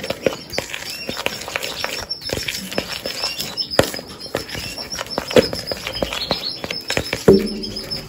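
Canaries chirping and fluttering, with many sharp clicks and taps throughout.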